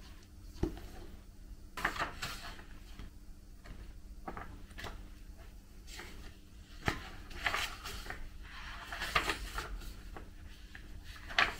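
Paperback book pages being leafed through and turned by hand: a string of irregular short paper rustles and flicks, a few louder than the rest.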